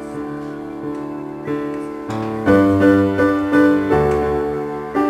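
Piano music: a slow melody of struck notes that ring and fade, growing fuller and louder with lower notes about two seconds in.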